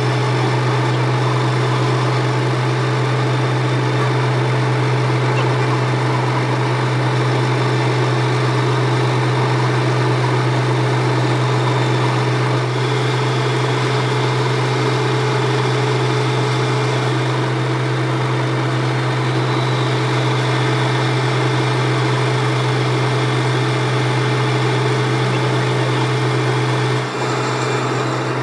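Workshop machinery running with a steady low hum and an even mechanical noise over it. Near the end it dips briefly and changes slightly, as at an edit.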